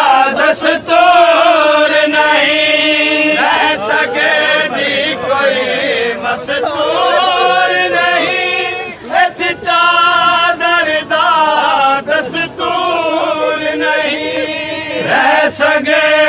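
Male voices chanting a Saraiki noha, a slow Shia mourning lament sung without instruments in long held lines.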